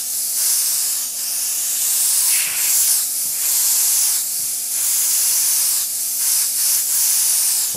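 Gravity-feed airbrush spraying white paint: a steady hiss of compressed air and atomised paint that eases briefly between strokes, over a faint steady hum.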